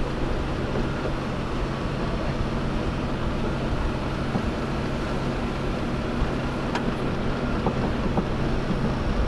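An engine or motor running steadily with a constant low hum, and a couple of faint ticks about seven seconds in.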